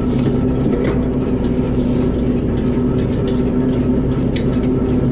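Kioti PX 9020 tractor running steadily with its PTO engaged, driving a Vermeer Rebel 5520 round baler's chains and sprockets; a steady hum with scattered light ticks.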